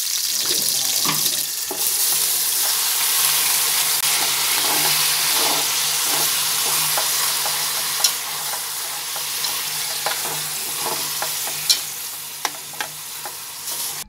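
Lemongrass and then marinated chicken pieces sizzling in hot oil in an aluminium pot, stirred with a utensil. The utensil knocks sharply against the pot a few times in the second half.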